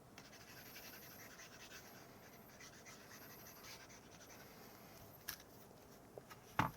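Faint scratching over low hiss, with a short click about five seconds in and a louder brief thump near the end.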